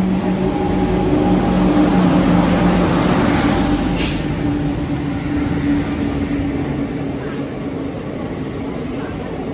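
Indian Railways electric locomotive and its passenger coaches rolling into the station platform. The loudest point comes as the locomotive passes, with a steady low hum. A single sharp clack sounds about four seconds in, and the coaches go by with a fading rumble.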